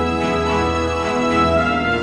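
Background music: sustained instrumental chords changing every half second or so.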